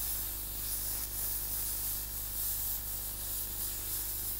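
Steam gun of a dry cleaner's spotting table hissing steadily, a gentle, controlled flow of steam played over a stain to heat the peroxide bleach so it works. A steady low electrical hum sits underneath.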